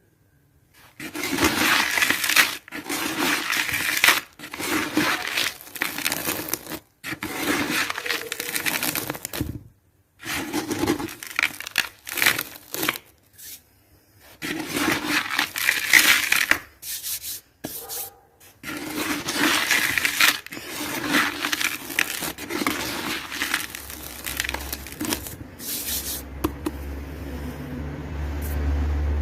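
Dry, gritty cement being crumbled, a crunching and grinding in bursts of a few seconds with short pauses between them. A low hum comes in near the end.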